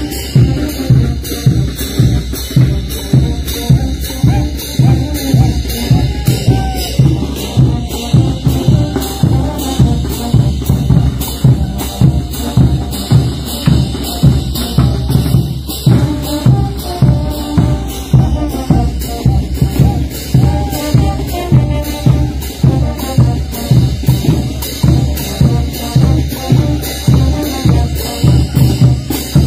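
Brass band playing potolo dance music: bass drums and snare drums keep a steady, even beat under the tubas and other brass.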